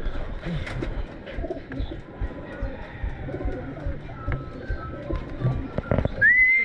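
Domestic racing pigeons cooing in the loft, with a few sharp knocks. Near the end a person starts whistling a steady high note.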